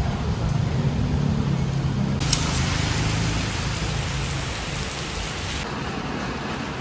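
Vehicle in motion: a steady low engine rumble and hum, with a rushing hiss that starts with a click about two seconds in and stops about a second before the end.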